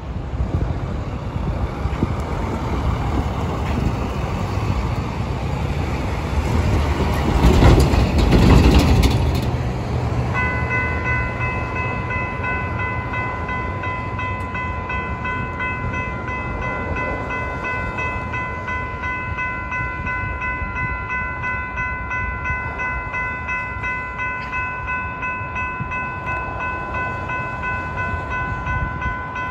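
Wind rumble on the microphone, with a loud rush about eight seconds in. Then, about ten seconds in, a railroad level crossing's electronic warning bell starts ringing in steady, evenly repeated strikes and keeps on, signalling an approaching train.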